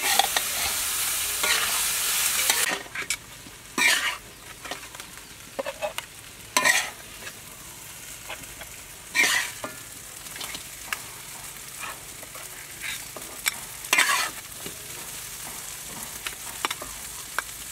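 Crab fried rice sizzling in a wok while a metal spatula stirs and scrapes it. About three seconds in the sizzle drops away, leaving separate scrapes of the spatula as the rice is scooped out of the wok.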